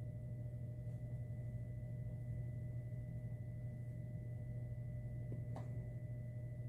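Steady low electrical hum with a faint constant high whine above it, and one faint click about five and a half seconds in.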